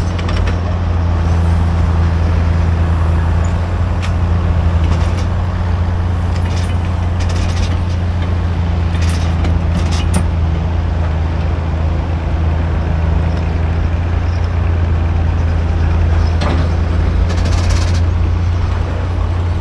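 An engine running steadily with an even low drone. Several brief high hisses cut through it over its course.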